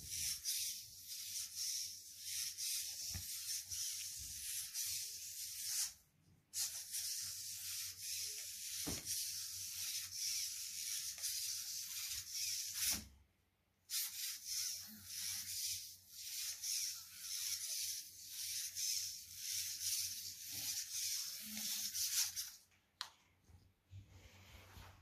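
Hexapod robot's hobby servos whirring as its legs move. It is a high, steady hiss that comes in three long runs, with brief pauses about six and thirteen seconds in, and it stops shortly before the end.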